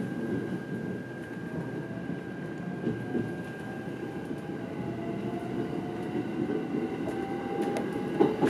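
Electric local train pulling away from a station, heard from inside the cab end. A steady rumble from the wheels runs under a motor whine that rises slowly in pitch as the train gathers speed. One sharp knock comes near the end.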